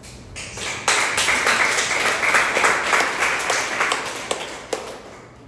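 Audience applauding: many hands clapping, swelling quickly about a second in, then dying away near the end with a few last single claps.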